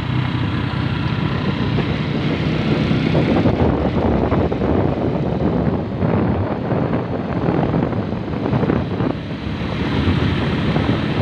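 A motor vehicle running: a steady low engine hum under a loud rushing noise that rises and falls.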